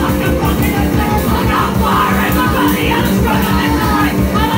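Live punk rock band playing loud: electric guitar, bass and drums at a fast, driving beat, with a singer shouting the vocals.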